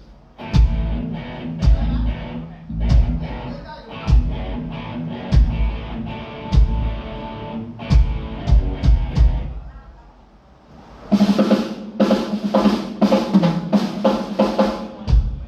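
A live band plays an instrumental passage with no singing. The drum kit keeps a slow, even beat of bass drum and snare over held notes. After a short drop about ten seconds in, a fast run of drum hits follows.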